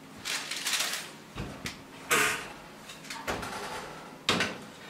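An oven door being opened and a baking tray handled: about five separate short clunks and rustles, with one low thump.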